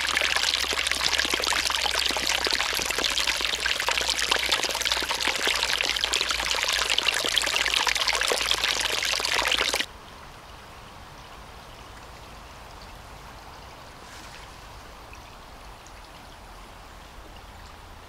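Small forest stream trickling and splashing over stones, heard close up. About ten seconds in, the sound drops suddenly to a faint steady hush.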